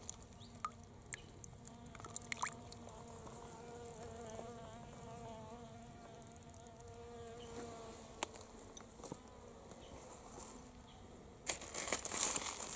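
A flying insect buzzing for several seconds, its drone wavering in pitch, with a few light clicks of stones. Near the end, a loud crunching of gravel and stones.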